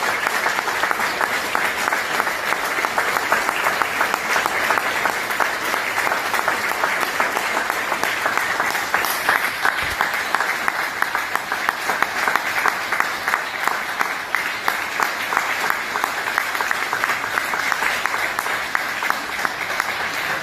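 Audience applauding steadily, many hands clapping together without a break.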